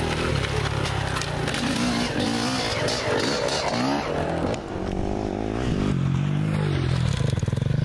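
Dirt bike engines revving, the note rising and falling again and again as the throttle is worked.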